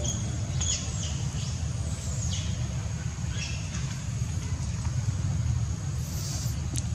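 Outdoor background noise: a steady low rumble with a faint steady high whine, broken by a few short high chirps and a brief hiss near the end.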